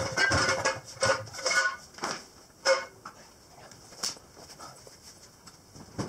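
Animal calls: several short pitched cries in the first three seconds, then quieter, with one sharp click about four seconds in.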